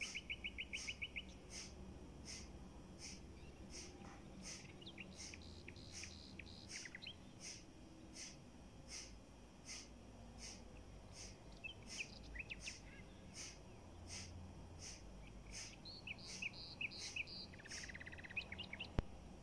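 Small birds singing: a rapid trill of chirps at the start, scattered chirps through the middle, and another burst of chirps and a trill near the end. Under it, a high short note repeats evenly about one and a half times a second.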